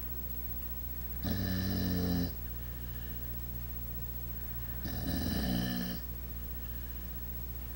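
Sleeping pet dog snoring: two deep snores, each about a second long, about three and a half seconds apart.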